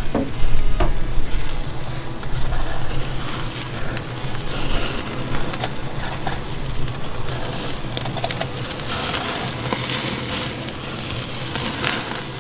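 Ground-beef burger patties sizzling on a grill directly over hot charcoal, a steady hiss with scattered crackles.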